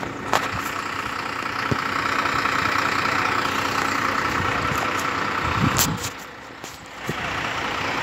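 Fire engine idling steadily, its level dipping briefly about six seconds in.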